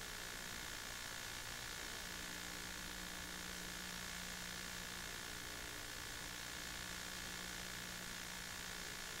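Steady hiss with a faint electrical hum, with no sound from the scene itself: recording or transfer noise.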